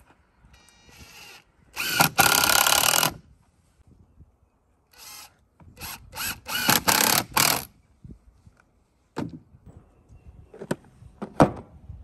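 Cordless drill driving screws into pine boards: one loud run of about a second, then a short burst and a quick series of shorter runs. A few sharp knocks follow near the end.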